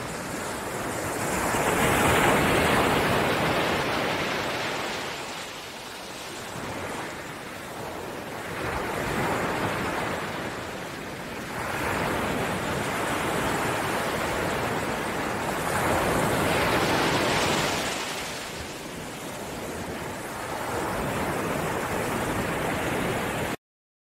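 Sea waves surging and breaking over rocks along a stony shore: a steady wash of surf that swells and ebbs several times, loudest about two seconds in and again around seventeen seconds. It cuts off abruptly just before the end.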